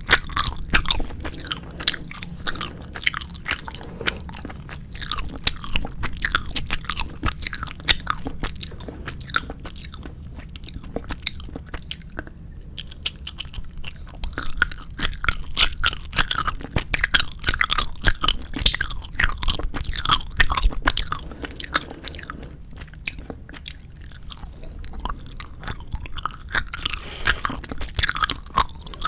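Close-miked chewing of 4D gummy jelly candy: continuous squishy, sticky mouth sounds with bites and small crunches, easing off briefly now and then.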